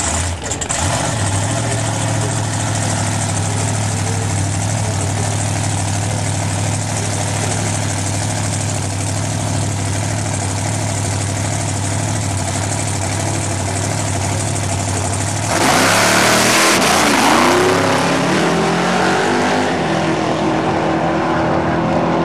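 Race car engine running at a steady low idle, then about 15 seconds in a sudden loud full-throttle run with the pitch sweeping up and down, easing off near the end with a falling pitch.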